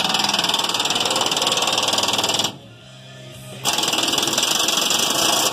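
Pneumatic air impact wrench hammering on a rusted gas tank strap bolt, in two long bursts of about two and a half and two seconds with a one-second pause between.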